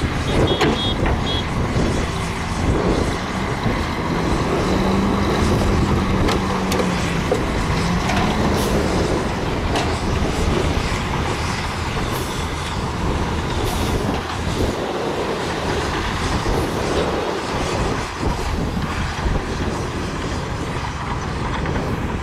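Tipper dump truck's diesel engine running as its raised bed tips out a load of dirt, with a pitched tone that rises slightly and then falls from about two to eight seconds in.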